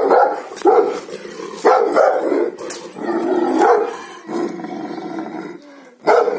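Gaddi dog, a Himalayan sheepdog, barking repeatedly, about once a second, with a few longer, drawn-out barks.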